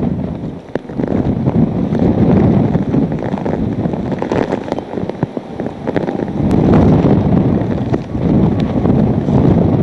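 Hurricane-force wind gusting hard across the microphone, a loud rushing that eases briefly about half a second in and again around five seconds, then surges back. Scattered sharp ticks run through it.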